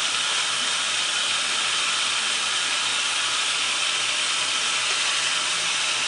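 Steady, even hiss with a faint low hum beneath it, unchanging throughout.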